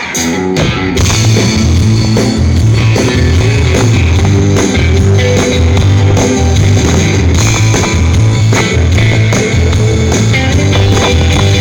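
Rock band playing a song's instrumental intro live, with electric guitar, a steady bass line and drum kit keeping a regular beat; the band comes in about a second in.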